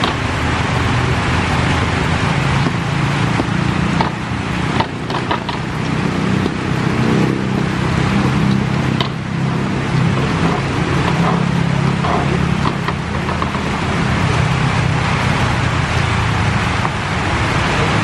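Steady outdoor background noise: a low rumble under an even hiss, with a few short clicks and scrapes about four, five and nine seconds in.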